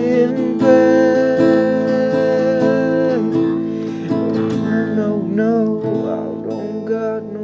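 Acoustic guitar strummed under a man's singing voice. A long held note starts about a second in, and the voice then wavers up and down in the second half.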